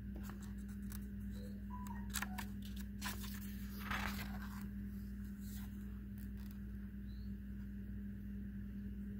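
Pages of a paper picture book being handled and turned: light clicks and a short paper rustle about four seconds in, over a steady low hum.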